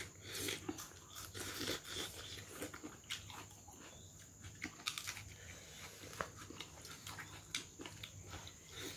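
A person chewing and biting food close to the microphone: irregular wet smacks, mouth clicks and small crunches of a mukbang meal of rice and pork.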